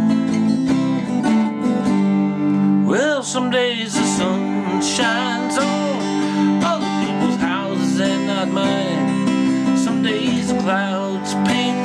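Restored Lyon & Healy parlor acoustic guitar with silk-and-steel strings, played in steady sustained chords, with a wavering, bending melody line over them from about three seconds in.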